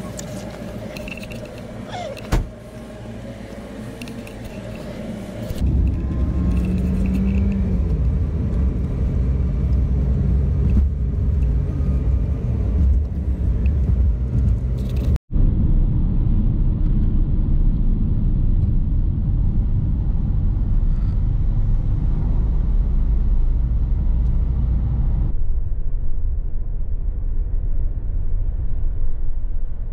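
Van driving on the road: a steady low rumble of engine and tyre noise, quieter for the first few seconds with one sharp click, then loud and dense.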